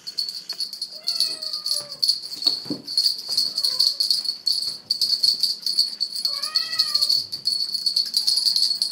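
Small bells on a feather wand cat toy jingling continuously as the wand is shaken. A kitten meows twice, about a second in and again past the middle, each meow short and arching in pitch.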